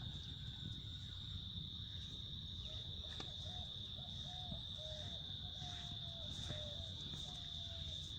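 Continuous high-pitched insect drone, like crickets chirring, over a low rumble. Through the middle comes a string of faint, short pitched calls, about a dozen notes.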